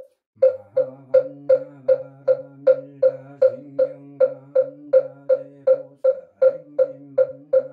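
Moktak (Buddhist wooden fish) struck in a steady beat, about two and a half strokes a second, each with a hollow ringing knock, resuming after a brief pause at the start. A low monotone chant is held beneath the beat and breaks off briefly near the six-second mark.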